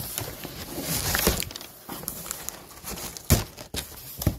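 Cardboard box flaps being handled and brown kraft packing paper rustling and crinkling, with three dull thumps, the loudest a little past three seconds in.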